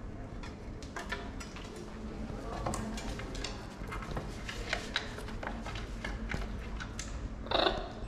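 Macaws feeding on seeds and nuts: scattered sharp clicks and crunches of beaks cracking shells and knocking the wooden table, then one short, loud, rough macaw squawk near the end.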